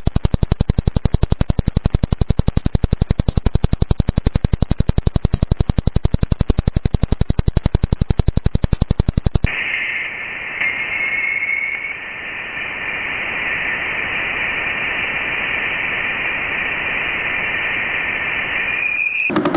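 Sonified signals from space: a fast, evenly spaced train of clicks, the kind of pulse train a pulsar's radio signal gives. About halfway through it gives way to a steady band of hiss like radio static, with a short whistling tone in it.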